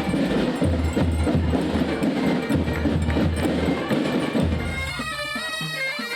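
Bagpipe music with a steady drumbeat. About five seconds in the drums drop back and the bagpipe melody stands out alone.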